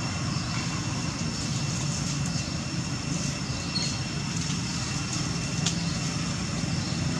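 A steady low mechanical drone, like a motor or engine running, with faint steady high-pitched tones above it and a single sharp click about two-thirds of the way through.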